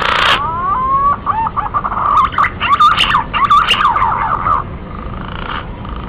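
Male green pigeon (punai) singing: a run of wavering whistled notes that slide up and down, thinning out and growing fainter after about four and a half seconds. A recorded call of the kind played to lure wild green pigeons.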